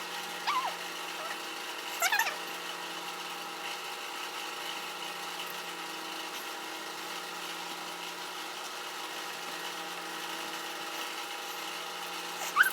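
A steady machine-like hum made of several fixed tones, broken by two short pitched chirps, about half a second and two seconds in.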